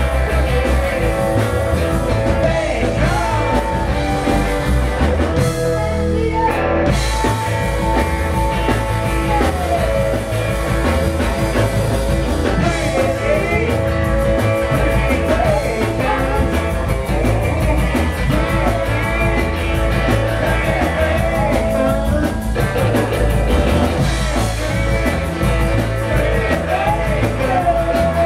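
Live rock-and-roll band playing: electric guitar, upright double bass and drum kit, with a steady driving beat.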